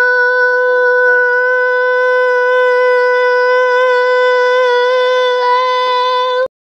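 One long held musical note at a steady pitch, rich in overtones and wavering only slightly, that cuts off abruptly about six and a half seconds in.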